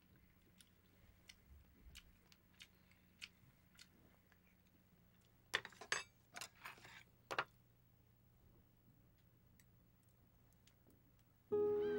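Chopsticks and a spoon clinking against porcelain bowls during a meal: light, scattered taps, then a quick cluster of louder clinks about halfway through. Music with gliding notes comes in just before the end.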